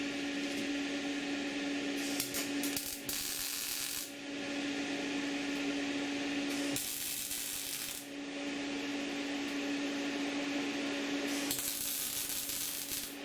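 A workshop machine running with a steady hum, with three bursts of hiss each about a second long.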